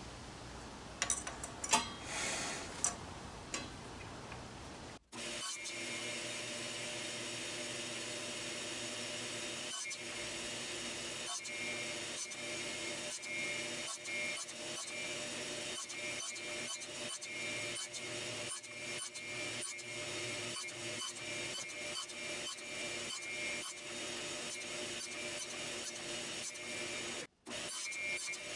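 A few sharp clicks and knocks as the saw is set up. Then, from about five seconds in, a table saw running and cutting wood, its steady whine broken into many short pieces.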